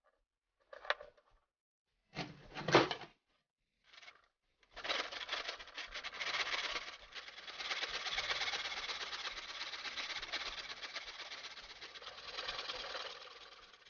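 Hand saw cutting through a cow bone clamped in a bench vise, steady sawing from about five seconds in until just before the end. Before it come a few short handling sounds and one loud knock, about two and a half seconds in.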